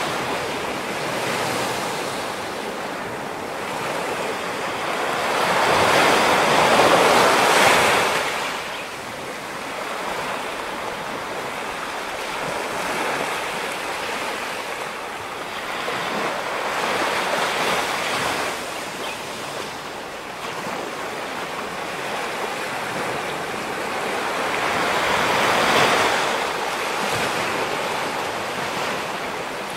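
Ocean surf breaking on a rocky shore, a steady rush of water that swells to a peak roughly every nine or ten seconds, the loudest wave about seven seconds in.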